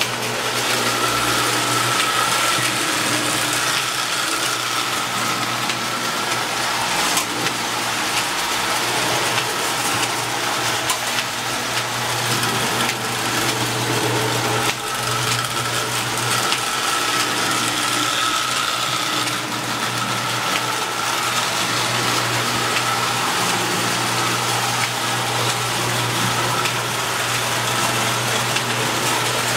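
Marx tinplate electric toy train running steadily around its track, with a constant motor hum under the rolling noise of the wheels.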